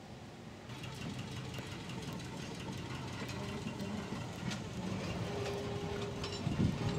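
Two-car train of vintage electric interurban cars approaching on the track, its running sound growing louder. A steady whine joins about five seconds in.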